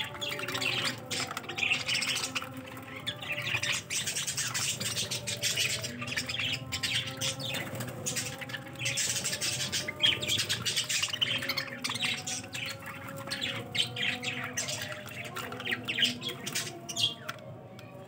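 A flock of budgerigars chattering and chirping continuously, many birds calling at once, with a few sharper, louder calls standing out.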